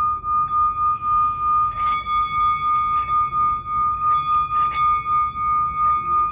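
Singing bowl ringing with one steady high tone and its overtones, the loudness pulsing evenly several times a second, with a few faint taps.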